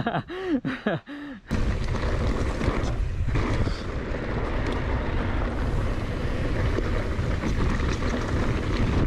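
Steady rush of wind buffeting the camera microphone, with low rumble and rattle from a mountain bike riding over a dirt trail. It starts abruptly about a second and a half in, cutting off a man's voice.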